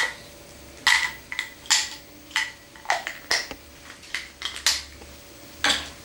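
About a dozen sharp, irregular clicks and clinks, like small hard objects knocking together.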